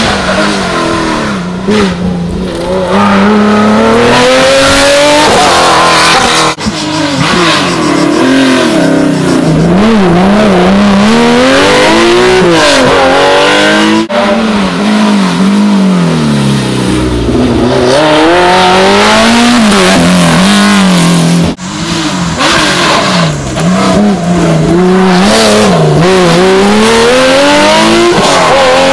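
Historic rally car engines at full throttle, the loud engine note repeatedly climbing and dropping as the cars accelerate, shift gear and brake for corners. The sound breaks abruptly three times as one car's run gives way to the next.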